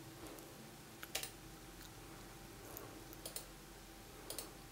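Faint computer mouse clicks: several short sharp clicks, some in quick pairs, over a low steady hum.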